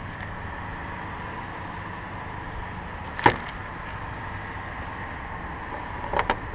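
A single sharp knock about halfway through and a quick few clicks near the end, over steady background hiss with a faint steady tone.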